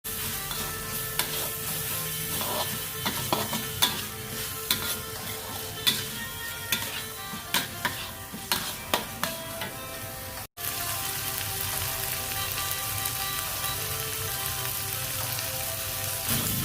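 Food sizzling in hot oil in a pan while being stirred. A utensil clicks and scrapes against the pan many times in the first two-thirds, then the sizzle goes on steadily after a brief cut.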